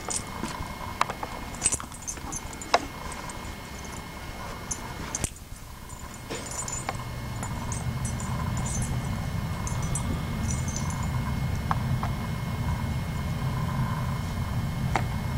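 Light, scattered clicks and rattles of plastic action figures being handled, with a low steady hum that builds over the second half.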